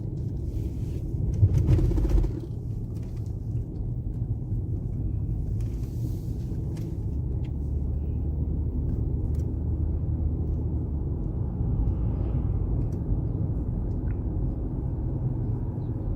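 A car driving, heard from inside the cabin: a steady low rumble of engine and road noise, with a louder bump about a second and a half in.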